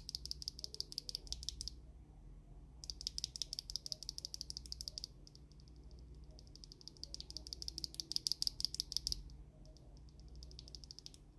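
Rapid keystrokes on factory-lubed Gateron Pro Silver linear mechanical switches in the GK61 V2 keyboard. The keys are pressed in quick runs of clicks, about four runs, with short pauses between them.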